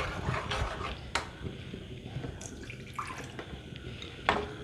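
Spoon stirring thick coconut chutney in a metal kadai, with two sharp clicks, about a second in and near the end.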